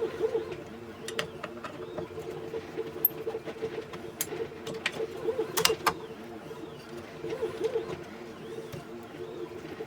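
Scattered sharp clicks and clinks of small parts and hand tools as a pinball playfield is stripped, the strongest cluster a little past the middle, over a steady hum.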